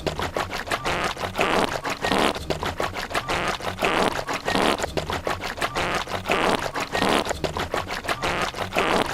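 Fart and stomach-gurgle sound effects chopped and looped turntable-style into a repeating rhythm: a noisy swell about every second and a quarter over a fast stutter of short pops.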